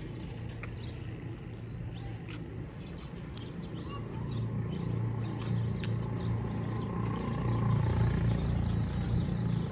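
A low rumble that grows louder over the second half, with faint bird chirps and small clicks above it.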